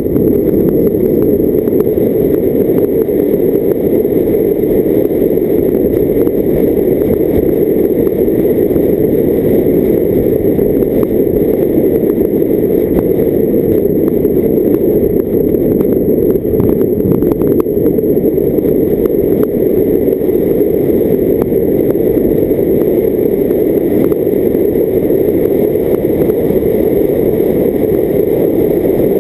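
Car driving steadily, heard as a dull, even rumble of wind and road noise on a camera mounted outside on its bonnet.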